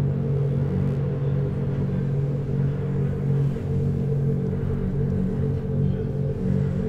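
Low, steady droning rumble of a dark ambient film score, several sustained low tones held without a beat.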